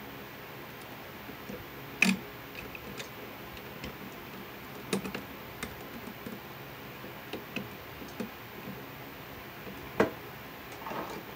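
Light, irregular clicks and ticks of wire strippers and stiff copper house wire being worked at a wall receptacle. Two sharper snaps come about two seconds in and again near the end, followed by a brief scraping rustle.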